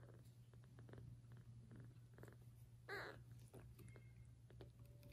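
Newborn kittens, faint: a single short mew about three seconds in, with small soft rustles and scratches as they shift about on a puppy pad.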